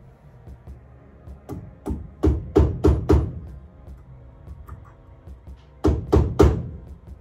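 Sharp metal knocks in quick groups: about six strikes a second and a half in, then four more about six seconds in. A tool is hammering cut sheet-metal tabs over so their sharp edges can't catch anyone.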